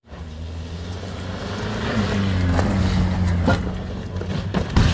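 A vehicle engine running with a steady low note. It grows louder about two seconds in, and a couple of sharp knocks come near the end.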